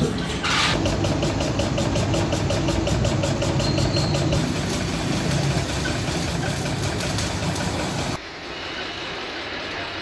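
Arc welding with a stick electrode on a steel geyser tank: a steady, dense crackle and sizzle of the arc, dropping in level about eight seconds in.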